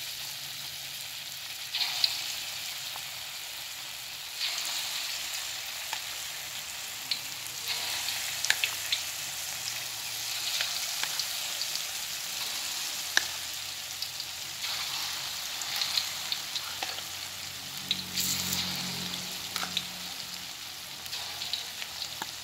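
Tofu, egg and sausage balls deep-frying in hot oil in an aluminium wok: a steady sizzle with crackles and pops, swelling several times as fresh balls of batter are dropped in.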